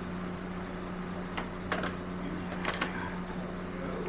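A few short sharp clicks and knocks of motorcycle fairing parts being worked back into place, two of them close together near the end, over a steady low hum.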